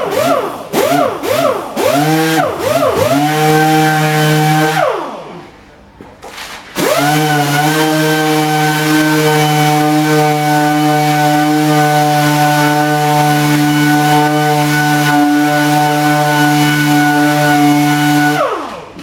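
Air-powered sander sanding filler on a plastic bumper. The motor whine speeds up and slows in quick pulses, about two a second, then runs steadily and winds down about five seconds in. It starts again about two seconds later, runs steadily and winds down near the end.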